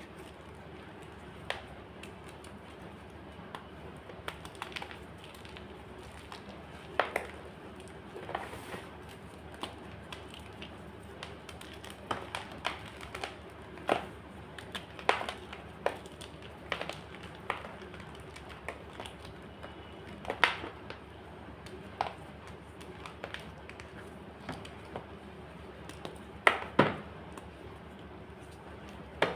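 White gym chalk being crunched: sharp, brittle cracks at irregular intervals, about one every second or two, some much louder than others.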